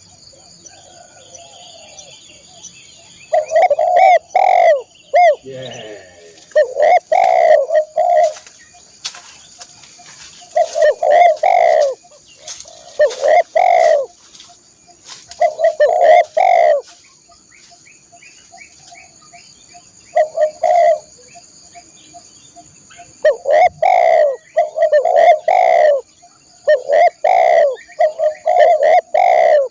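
Spotted dove cooing loudly in repeated phrases of low hooting notes, each phrase lasting a second or two with short pauses between. A faint steady high-pitched tone runs underneath.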